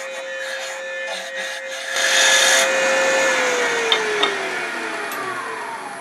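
Wood lathe spinning a thin pen blank at about 3,000 rpm with a steady whine while a spindle roughing gouge takes light cuts on it; the loudest cut comes about two seconds in. About three seconds in, the lathe is switched off and its whine falls steadily in pitch as it spins down, with a couple of light clicks.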